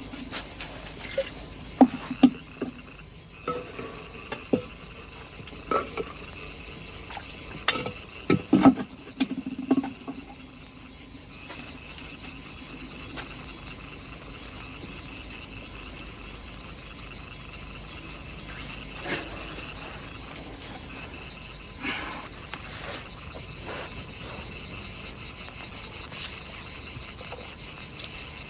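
Night-time chorus of crickets, a steady high trill, with scattered knocks and thumps, most of them in the first ten seconds.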